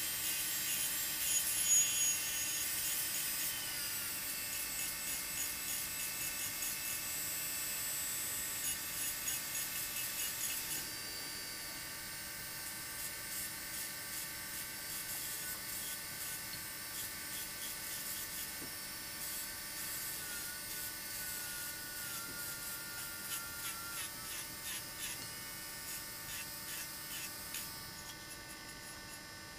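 Handheld electric rotary engraving tool running with a steady whine while its grey rubber abrasive point works over the glass, giving a scratchy hiss that pulses with each short stroke. The sound drops and thins out near the end.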